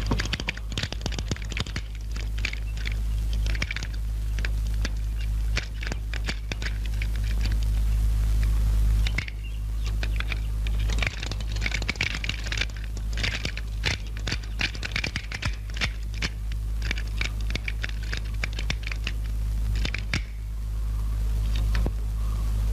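Bicycle wheel spun and worked on a truing stand to straighten a bent rim: long runs of rapid clicking and scraping that pause about nine seconds in and again near the end, over a steady low hum.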